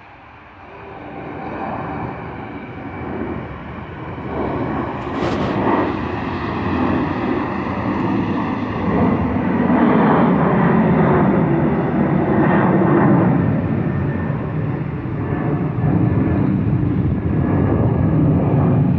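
Jet airliner's engines at takeoff power: a roar that builds over the first ten seconds and then stays loud. There is one sharp click about five seconds in.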